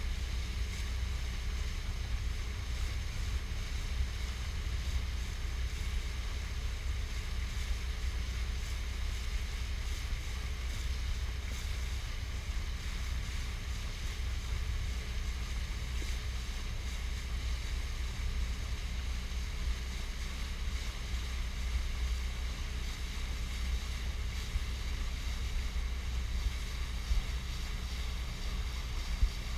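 Motorboat under way on calm water: a steady low wind rumble on the microphone over water rushing along the hull, with a faint steady hum. A few sharp knocks come near the end.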